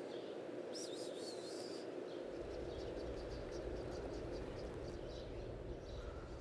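Steady outdoor background noise with faint high chirps repeating about three times a second, and a low hum that comes in about two seconds in.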